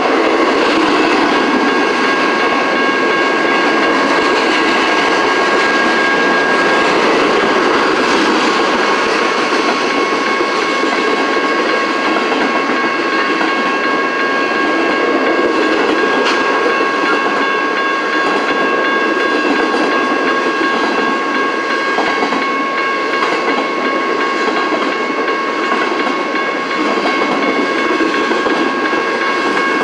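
Double-stack intermodal freight train rolling past at close range: a steady, loud noise of the well cars running over the rails. Steady high-pitched tones sound throughout.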